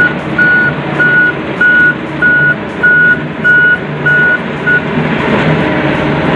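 Reversing-truck sound effect: a steady engine rumble under a reversing alarm that beeps about every 0.6 seconds, the beeps stopping about three-quarters of the way through while the rumble carries on.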